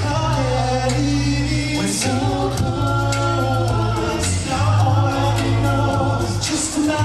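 Music with group singing: several voices holding sustained notes over a steady bass line.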